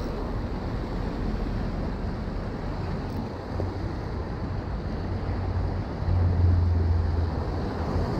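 Wind buffeting the microphone over small surf waves washing against shoreline rocks, as a steady rushing noise with a low rumble. The rumble grows louder for a moment about six seconds in.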